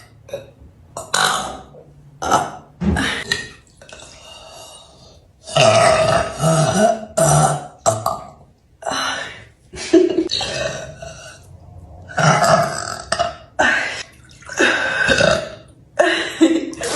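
A woman burping over and over: about ten separate burps, some short and some long and drawn out, the longest running over two seconds about six seconds in.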